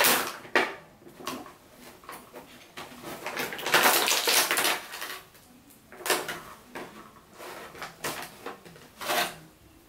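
Toy packaging being opened and handled: irregular crinkling and rustling with a few sharp clicks, the longest and loudest rustling about four seconds in.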